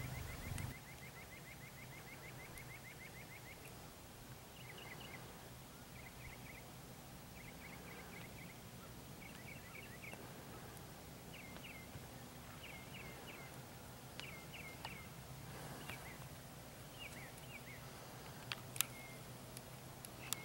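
Songbirds singing: a fast trill of repeated notes for the first few seconds, then short phrases of two to four chirps repeated every second or so, over a faint steady low hum. A sharp click sounds near the end.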